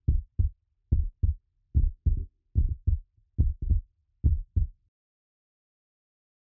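Heartbeat sound effect: six low double thumps (lub-dub), about one pair a second, stopping about five seconds in.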